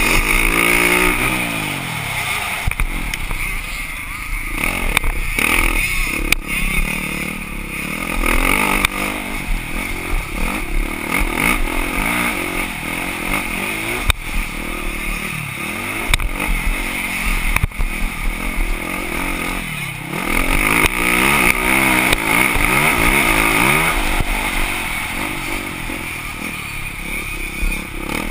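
Motocross dirt bike engine heard on board, revving hard and dropping back again and again as the rider shifts and works through the corners, with a few sharp knocks from the rough track.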